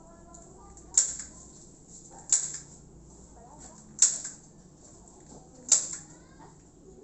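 A hand staple gun fastening decorative tent fabric to the frame: four sharp, loud snaps about a second and a half apart.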